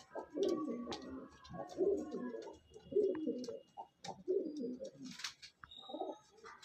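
Pigeon cooing: four low, throaty coo phrases about a second apart, then a shorter one near the end.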